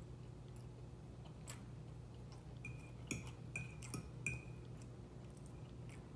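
A metal fork clinking and scraping against a dinner plate a few times, a little before halfway through, as food is scooped up, over a faint steady hum.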